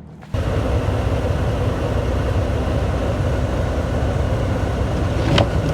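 Ram 2500 gas pickup's engine running with a steady low rumble, which starts abruptly about a third of a second in. Two short knocks sound near the end.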